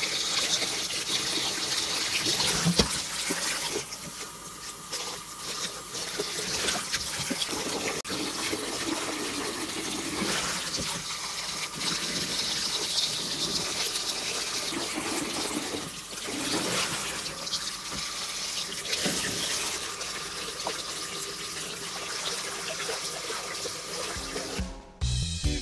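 Water sloshing and splashing in a stainless steel bowl as a bleach-dyed cotton T-shirt is rinsed and kneaded by a gloved hand, the sound surging and easing in waves. Music starts suddenly near the end.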